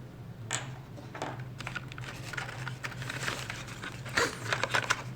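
Small plastic drone accessories and their packaging being handled: irregular clicks, taps and crinkling, busiest about four seconds in.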